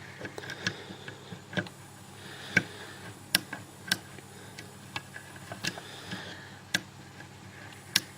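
Hook pick and tension wrench working the pins of an old Lockwood deadlock cylinder: irregular sharp metallic clicks and light scraping, about a dozen clicks spread over several seconds. The pins give no binding feedback, so none are setting.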